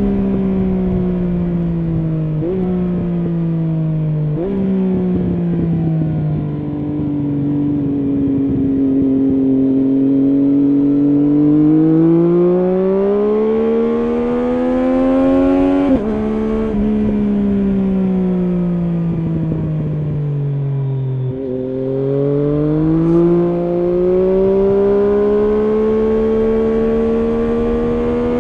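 Triumph Street Triple S inline three-cylinder engine through an SC Project SC1-R slip-on exhaust with its dB-killer fitted, heard from the rider's position under way. The revs fall while the engine blips up on two downshifts in the first few seconds, then climb under acceleration until a sudden drop about 16 s in, fall again, and climb once more near the end.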